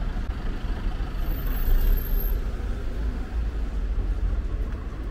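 City road traffic: a steady low rumble of motor vehicles passing on the street, swelling briefly about a second and a half in.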